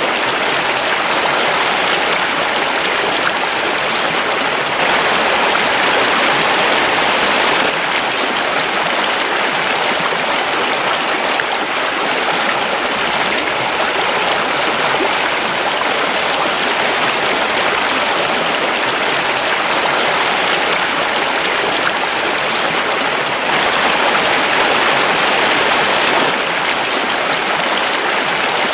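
Forest river flowing over rocks: a steady, full rushing of water that swells slightly twice.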